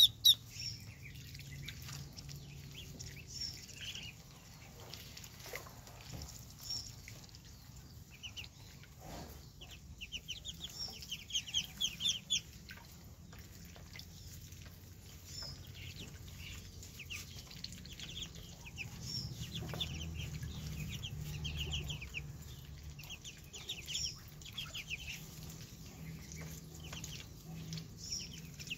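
A brood of ducklings peeping: runs of short, high-pitched peeps, loudest in a quick run near the middle, over light water splashing as they paddle and dabble in a shallow tub.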